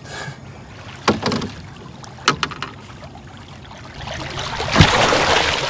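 Lake sturgeon splashing at the water's surface as it is held in the river by hand for release: a rush of churning water builds about four seconds in, with one heavy slap near the end. A few short faint knocks come before it.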